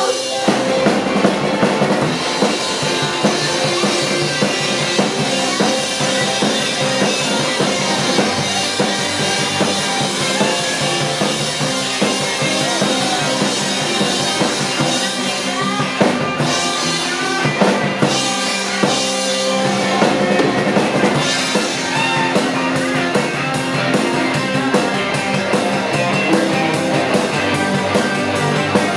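Live rock-and-roll band playing an upbeat number, with the drum kit's bass drum and snare keeping a steady beat.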